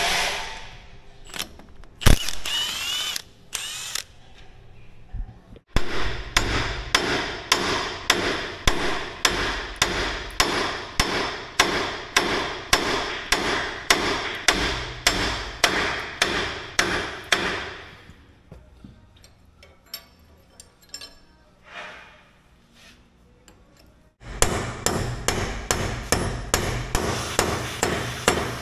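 Hand hammer striking steel in a steady run of blows, about three a second, driving out the mounting pin of a Cat D7F dozer's hydraulic cylinder. The hammering stops for several seconds past the middle, then starts again near the end.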